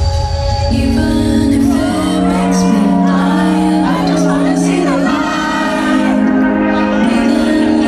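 Electronic dance music played loud over a festival sound system. The heavy bass drops out about a second in, leaving sustained synth chords with a sung vocal line over them, as in a breakdown.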